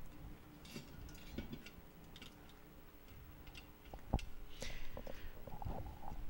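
Faint scattered clicks and taps of wires and small metal parts being handled inside a blender's metal motor housing as it is reassembled by hand, with a sharper knock about four seconds in.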